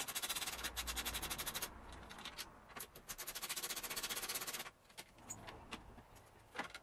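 Ratchet wrench clicking fast and evenly in two runs, about a second and a half each with a short pause between, while undoing the nut that holds the air intake tube's mounting bracket. A few light clicks and knocks of metal tools follow near the end.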